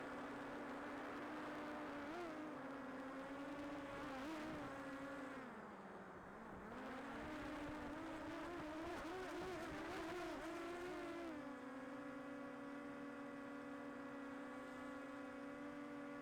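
Quadcopter drone's motors and propellers humming steadily. The pitch sags about halfway through, then wavers up and down for a few seconds before settling back to an even hum.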